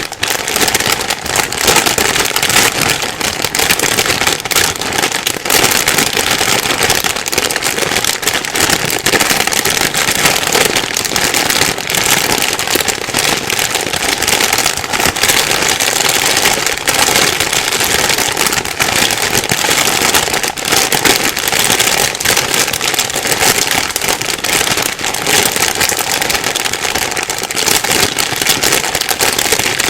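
Plastic bag being rustled and crumpled continuously: a dense, loud crinkling crackle with no pauses.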